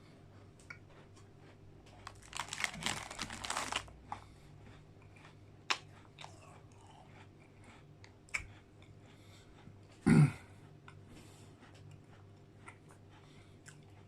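Close-miked eating of a digestive biscuit with McFlurry ice cream: a burst of crunching about two seconds in, then chewing with scattered small clicks, and a short loud thump about ten seconds in.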